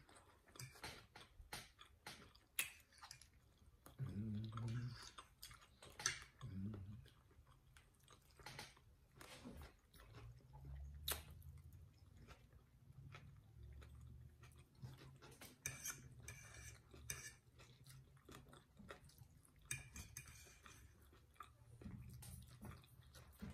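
Faint close-up chewing and mouth sounds of people eating a baked potato and sausage casserole, with scattered light clicks of metal forks against plates and a couple of brief hums with closed mouths.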